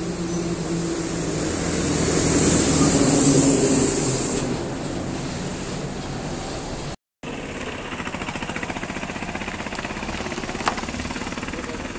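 A bus passing close by on the road, its engine and tyre noise swelling to a peak and falling away over about four seconds. After a brief cut, a steadier rumble of road traffic follows.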